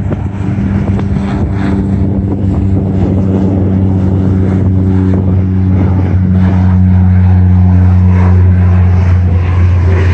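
Single-engine floatplane at takeoff power: a steady propeller drone with a low hum and overtones, growing louder as it lifts off the water and climbs past, then easing slightly near the end.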